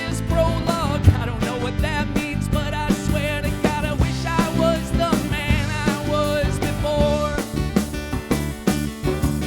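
Live band playing a song: a lead melody line with vibrato over guitar and a drum beat.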